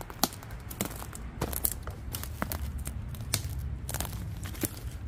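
Footsteps crunching over dry twigs and conifer-needle litter on a forest floor, with irregular sharp twig snaps, over a low steady rumble.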